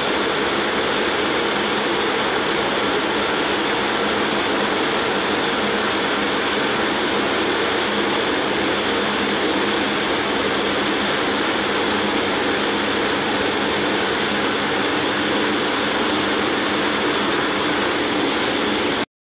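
Multi-blade granite block cutter's large circular saw blade cutting through a granite block under a water spray: a loud, steady hiss with a faint steady hum, cutting off abruptly near the end.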